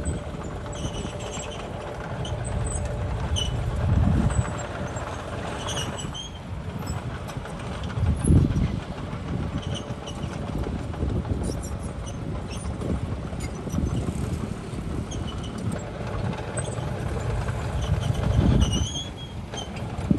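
Heavy diesel machinery, a bulldozer working with a dump truck, running steadily, with deeper surges in engine sound about 4, 8 and 19 seconds in. Short faint high squeaks come and go over the top.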